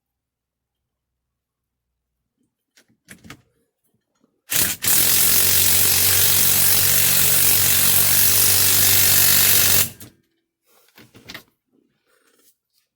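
Power tool driving the steering wheel's big retaining bolt down onto the steering column: a brief blip about four and a half seconds in, then a loud, steady run of about five seconds that cuts off suddenly. A few faint clicks of handling come before and after.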